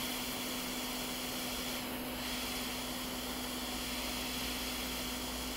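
Hot air rework station blowing: a steady hiss of airflow with a constant low hum.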